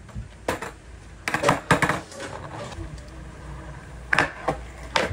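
Several short, sharp clicks and knocks, with a loud cluster of them about a second and a half in and single ones near the start and near the end, over a low steady rumble.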